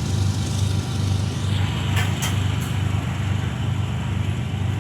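Steady low vehicle rumble with an even wash of noise, broken by a few sharp clicks about two seconds in.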